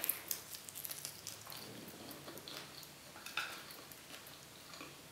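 Biting into a slice of pizza and chewing: faint crackly mouth and food sounds, with a run of small clicks in the first second and a sharper click a little past three seconds in.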